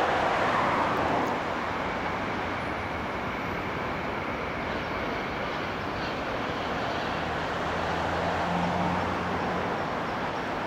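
Sm6 Allegro electric high-speed train moving away along the track. Its rolling noise is loudest in the first second or so, then settles to a steady, lower rumble, and a low hum comes in near the end.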